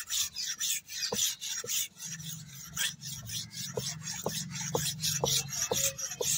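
Steel aruval (banana billhook) blade rubbed rapidly back and forth across a sharpening stone, held flat against it: a rasping scrape at about three to four strokes a second, with light metallic pings as the blade catches the stone.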